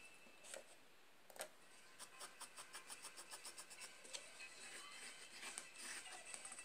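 Near silence, with faint light ticks and scratches, including a quick, even run of ticks about two to four seconds in.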